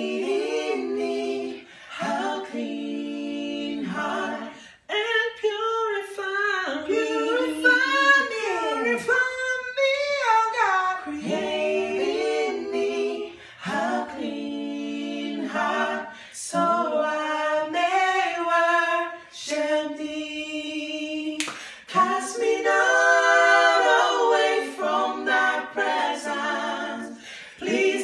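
Three male voices singing a gospel song a cappella in harmony, phrase after phrase with short breaths between, some held notes gliding in pitch.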